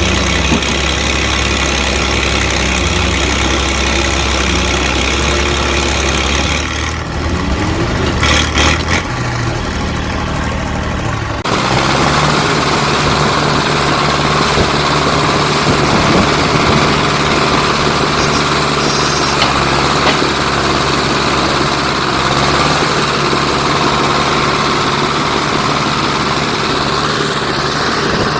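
Heavy machinery engine running steadily. About eleven seconds in, the sound cuts to another engine, with a thin high whine over it.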